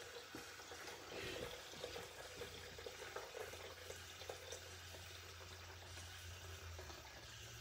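Faint running water, with a few light clicks: about three cups of water being added to a cooking blender for its self-cleaning cycle.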